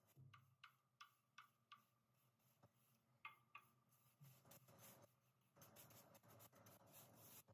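Faint taps and scrapes of a wooden spoon on a metal baking tray as dried onion flakes are stirred while toasting. A run of sharp ticks comes in the first two seconds, two more a little after three seconds, then a steadier scratchy rustle of the flakes being turned over in the last couple of seconds.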